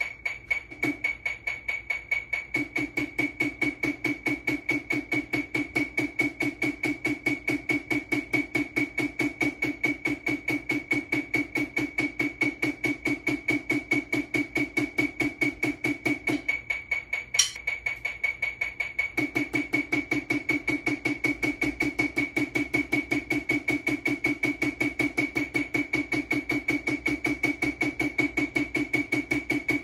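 Snare drum struck with wooden sticks in a fast, even stream of single strokes, over a metronome ticking in time. The drumming comes in about two and a half seconds in and breaks off for about three seconds past the halfway point, marked by one sharp click, while the metronome keeps ticking.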